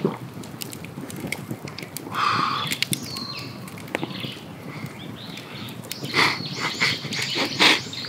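Wood campfire crackling with many small sharp pops, with birds calling.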